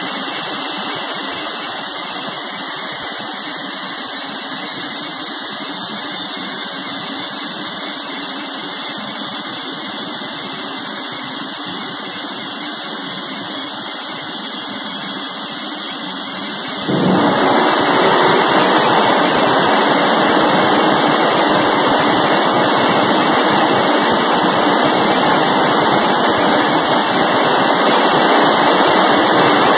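Small jet engine on a test rig running with a steady high-pitched whine over a rushing noise. A little over halfway through, the afterburner lights and the sound jumps suddenly louder and fuller, then holds steady.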